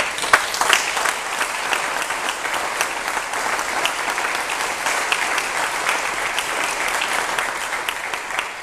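Audience applauding. The clapping breaks out suddenly and dies away near the end.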